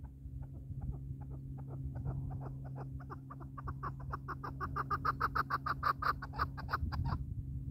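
Chukar partridge giving its rally call: a run of short clucking notes that start slow and sparse, speed up and grow louder, then stop abruptly about seven seconds in.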